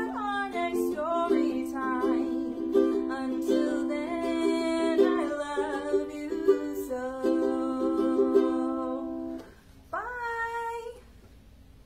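A woman singing a song while strumming a ukulele; the strumming and singing stop about nine and a half seconds in. Near the end comes one short rising vocal note.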